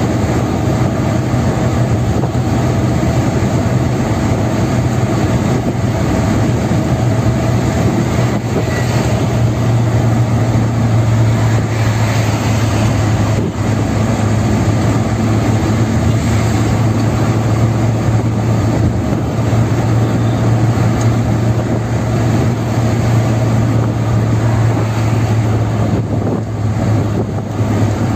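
Steady engine and tyre noise of a car cruising at speed on a highway, with a constant low hum.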